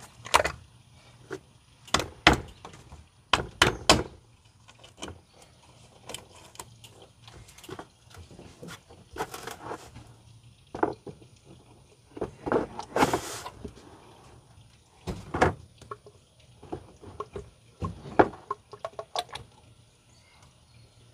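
Irregular hollow plastic knocks, clicks and rattles from handling a large plastic funnel in the engine's oil filler neck and a plastic motor-oil jug, with one longer scraping rustle about halfway through.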